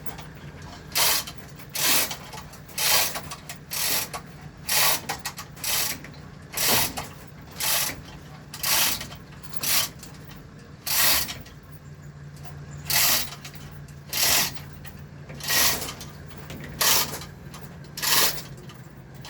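A hand-worked ratchet mechanism clicking in short rhythmic strokes, about one a second, over a steady low hum.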